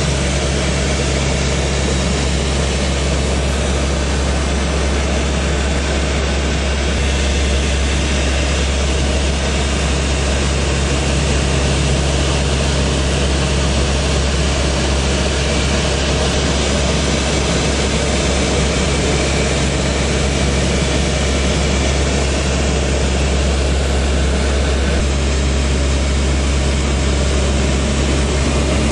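Aircraft engine drone: a steady, unchanging low hum with a constant hiss above it.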